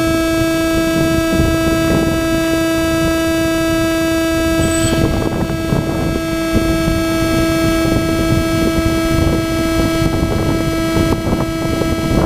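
Loud, steady electrical whine with many overtones, recorded by a GoPro's audio while it is plugged into a DJI Phantom 2's Zenmuse H3-3D gimbal: interference that shows up only when the camera is connected to the gimbal. A rough rushing noise sits underneath the tone.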